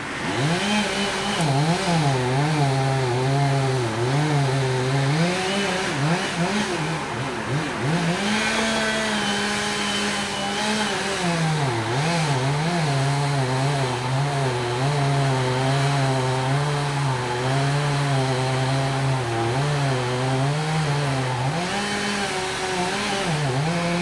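Two-stroke chainsaw run hard at the trunk, its engine pitch repeatedly dropping and climbing back as the throttle is worked and the chain loads up in the wood. It holds at full speed for a few seconds about eight seconds in.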